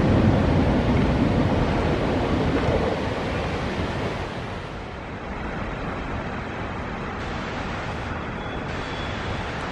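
Steady rush of a waterfall mixed with the rumble of a freight train of ore wagons that has just passed, fading away over the first five seconds. After that a quieter, even rushing noise goes on.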